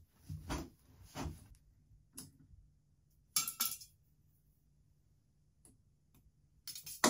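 Scattered light clinks and taps of metal parts being handled on a steel go-kart frame, a short rattle a few seconds in, then a sharper knock and clatter near the end.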